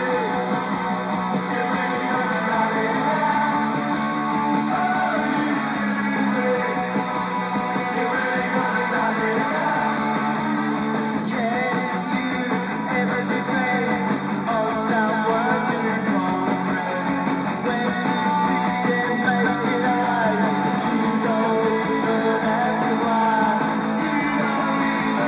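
Punk rock record playing: distorted electric guitars strumming over bass, with lead guitar lines weaving above.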